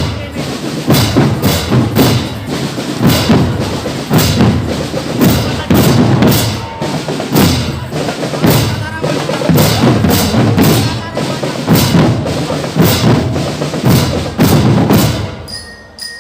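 Live percussion-led band music with loud drum strikes on a steady beat of about two a second. It drops away near the end.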